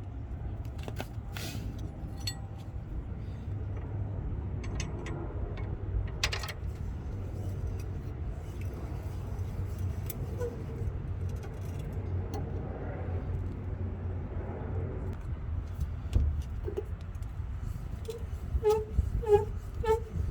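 Metal clinks and rattles from a floor jack being set under the car, then near the end a regular squeak about twice a second as the jack handle is pumped to lift it, over a steady low rumble.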